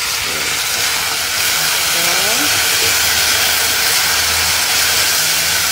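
Dried anchovies, chillies and freshly added oyster sauce sizzling in hot oil in a wok as they are stirred with a wooden spatula, a steady frying hiss. A low hum joins about halfway through.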